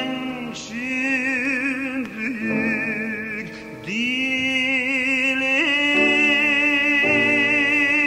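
A cantor's trained male voice sings long wordless notes with wide vibrato, in an operatic style, over a sustained instrumental accompaniment. The voice dips briefly just before four seconds in, then holds one long note while the chords underneath change.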